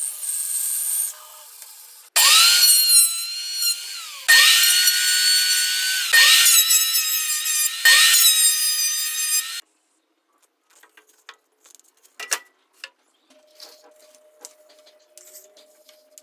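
Small electric power tool working wood in four runs of about two seconds, each starting with a quick rising whine as the motor spins up and holding steady before it stops. Faint clicks and taps follow.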